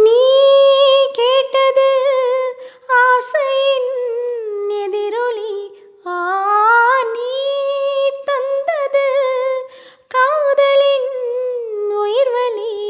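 A woman singing solo without accompaniment, in long held, gliding notes broken into phrases.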